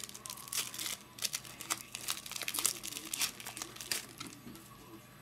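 Foil wrapper of a 2008 Topps Chrome baseball card pack crinkling as it is torn open by hand, a quick run of crackles that thins out near the end.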